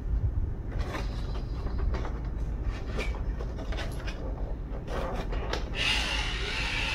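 Clicks and knocks of a plastic RC tank hull being handled, then from about six seconds in a steady rasping grind as the Heng Long Merkava Mk IV's turret is turned by hand, turning its traverse motor and gearbox with it through the slip clutch.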